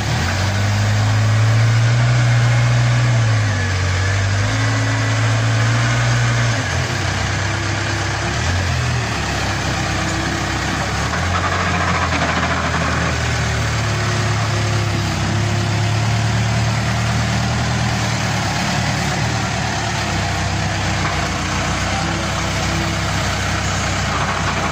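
Backhoe loader's diesel engine running, its revs stepping up and down several times in the first few seconds as the boom works, then holding a steadier note.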